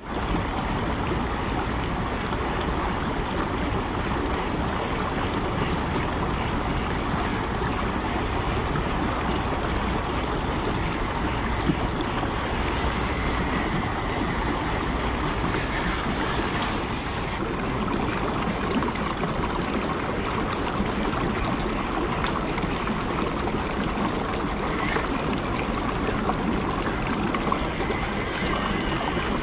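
Shallow stream water running steadily over rocks, a continuous even rush and trickle.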